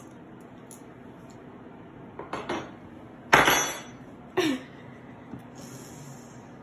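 A few clinks and knocks of tableware on a wooden table, the loudest a sharp knock about three and a half seconds in, with another about a second later.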